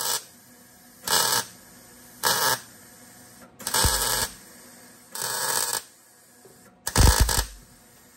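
MIG welder stitch-welding a patch panel into rusted sheet metal: six short bursts of arc crackle, each about half a second, roughly one a second, with quiet between them.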